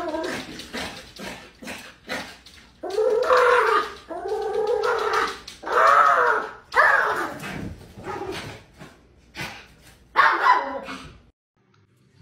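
Small dog whining and barking in a string of short cries that rise and fall in pitch, stopping abruptly near the end.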